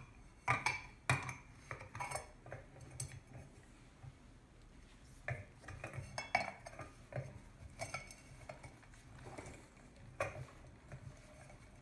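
Scattered, irregular metal clicks and taps as steel wire cutters are handled and fitted around a rusted screw on an antique globe's metal meridian ring and stand.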